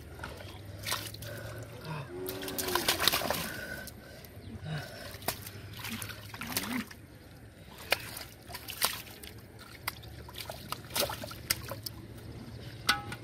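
Shallow muddy water splashing and trickling in irregular spurts as hands grip and lift a large catfish out of it, loudest about two to four seconds in.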